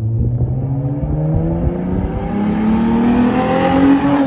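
Hyundai Genesis Coupe's 3.8-litre V6 with its muffler deleted, accelerating: the exhaust note climbs steadily in pitch as the revs rise.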